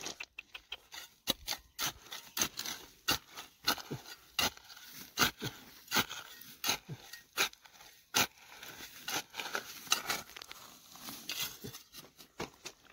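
A run of sharp, irregular clicks and scrapes, about two or three a second.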